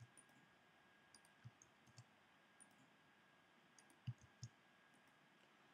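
Near-silent room tone with scattered faint clicks of a computer mouse and keyboard, the clearest two about four seconds in.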